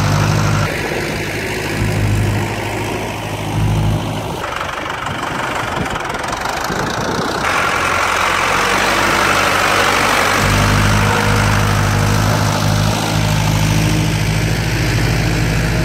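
Zetor 8045 tractor's four-cylinder diesel engine running, heard across several spliced shots. The sound changes abruptly a few times, and in the middle the low engine hum gives way to a rushing noise before coming back strongly about ten seconds in.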